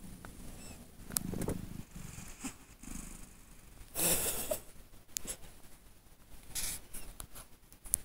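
Sleeping tabby cat snoring, with a low breath sound every second or two. The loudest, a noisy rasping breath, comes about four seconds in.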